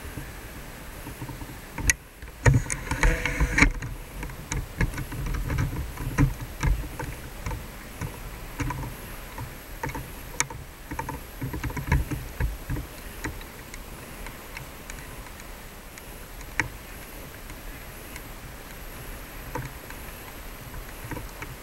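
Uneven rumble and scattered small knocks and clicks from a handheld camera being carried and moved, over faint street noise. The knocks are thickest and loudest about two to four seconds in.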